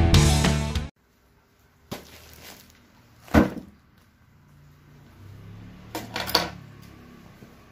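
Intro music with guitar cuts off about a second in. Then come hand-handling sounds of a plastic-wrapped, taped parcel on a wooden table: a few sharp knocks and rustles of the plastic wrap, the loudest about three and a half seconds in and a short cluster near six seconds.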